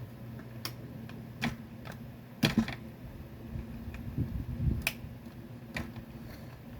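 Screwdriver clicking and knocking against a plastic toy gun while loosening the screws of its scope mount: a handful of scattered sharp clicks, the loudest about two and a half seconds in, over a faint steady hum.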